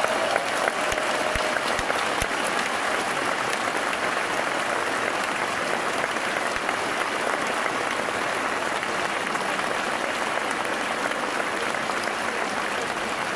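A large audience applauding steadily at the end of a choral and orchestral song.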